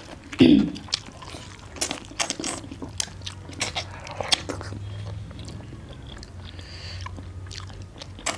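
Mouth sounds of eating rice and chicken liver curry by hand: chewing and lip smacking, with many short sharp wet clicks.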